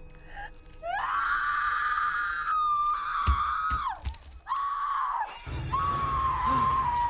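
A woman screaming in terror: three long, high, held screams one after another, starting about a second in. Two low thuds come in the middle.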